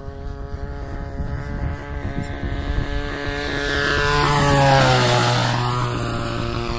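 Model airplane's RCGF 26cc two-stroke gas engine and propeller running at flying speed, growing louder as it passes close by about four to five seconds in, its pitch dropping as it goes past, then fading back to a steady drone.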